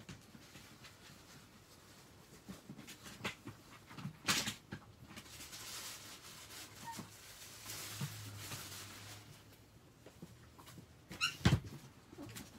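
A plastic dog toilet tray being handled: scattered light clicks and knocks, a stretch of rustling in the middle, and a louder clatter about a second before the end.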